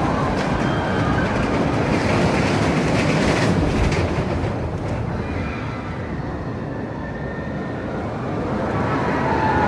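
Roller coaster train running along a steel track: a continuous rumble with faint high squeals, easing off a little mid-way and building again near the end.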